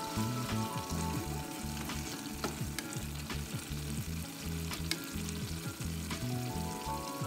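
A pot of saltfish stew simmering and bubbling while a wooden spoon stirs it, with scattered clicks of the spoon against the pan. Soft background music with held bass notes runs underneath.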